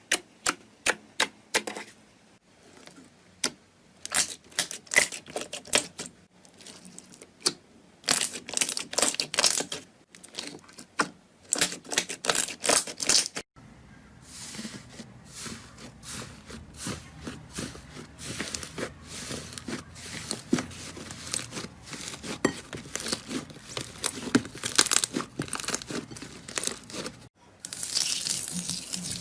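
Slime being squeezed, stretched and poked, making runs of sticky clicks, crackles and small pops. The sound changes character about halfway through and again near the end.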